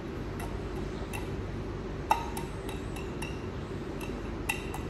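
A few light clicks of a stemmed cocktail glass touching a plate as its rim is pressed and turned in sugar and lemon zest, rimming it with sugar. The sharpest clink, with a short ring, comes a little past two seconds in, over a steady low hum.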